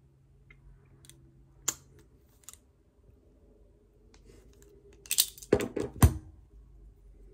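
Small clicks and taps from hands turning and handling a hard-rubber fountain pen held in a small metal tool. There is a single sharp click about two seconds in, and a quick run of louder clicks and knocks around five to six seconds in.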